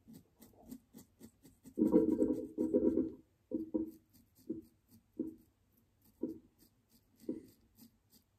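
Double-edge safety razor scraping through lathered beard stubble, first in two longer strokes and then in short separate strokes about once a second.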